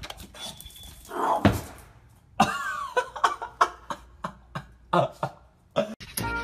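A pug's short rough noises: a longer one about a second in, then a quick run of short sharp ones at about two to three a second.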